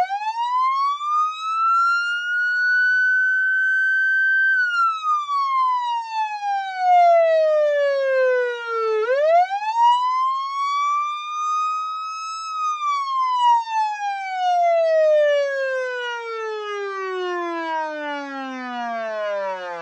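Police siren in a slow wail, sounding as a countdown timer's alarm at zero. It rises, holds and falls twice, and the second fall is drawn out, sliding low near the end.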